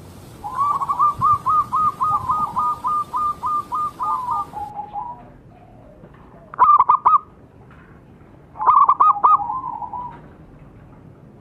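Zebra dove (perkutut) cooing: a long run of quick, repeated notes lasting about four seconds and trailing off lower, then two shorter bursts of coos a couple of seconds apart.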